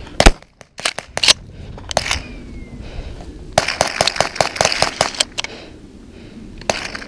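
A single close shotgun shot, loud enough to clip, followed about a second later by a few sharp metallic clacks, then a run of scuffs and clicks over the middle of the stretch.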